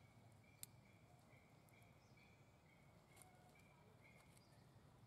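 Near silence: faint outdoor ambience with a quiet, high chirp repeating about two to three times a second, and one sharp click about half a second in.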